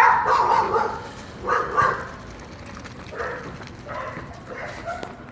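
A dog barking and yipping in a series of short barks, the loudest at the start and about a second and a half in, fainter ones after.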